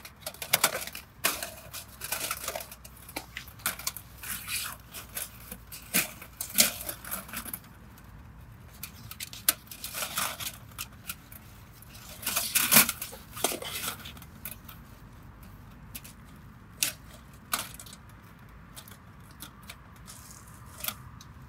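Folding aluminium camping windshield being pulled from its bag and unfolded: rustling and light metallic clinks and rattles of the hinged panels, busiest in the first third and again around the middle, then a few scattered clicks.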